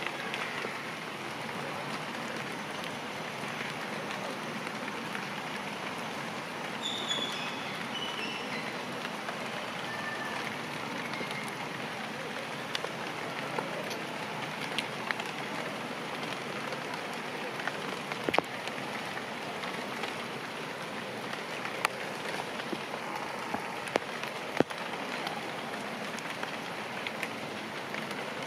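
Steady rain falling on grass and leaves, an even hiss with scattered sharp taps of drops. About seven seconds in, a short series of high notes steps down in pitch over the rain.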